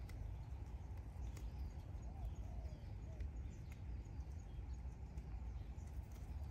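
Sika deer grazing close by: scattered small snaps and crunches as it crops dry grass, over a low wind rumble, with a few faint chirps.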